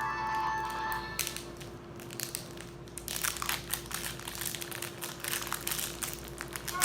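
A short electronic toy melody from the Hatchimal stops about a second in. After it comes a long run of irregular crinkling and crunching as plastic packaging and broken egg-shell pieces are handled.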